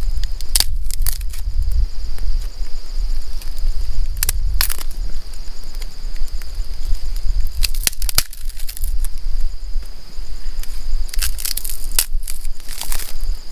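Dry twigs snapped by hand, sharp cracks coming in small clusters every three to four seconds, over a steady low rumble and a constant high-pitched tone.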